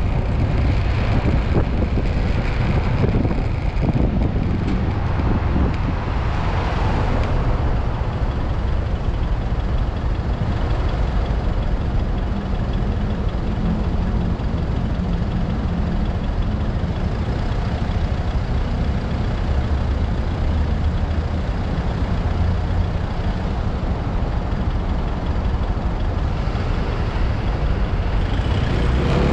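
Yamaha NMAX scooter riding in road traffic: its single-cylinder engine runs steadily under heavy wind rush on the camera's microphone.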